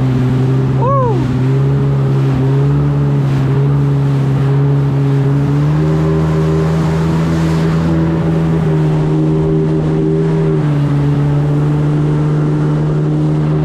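Jet ski engine running under way at cruising speed, a steady drone whose pitch steps up about one and a half seconds in and again around six seconds, then eases down a little near eleven seconds as the throttle changes. A brief high chirp that rises and falls comes about a second in.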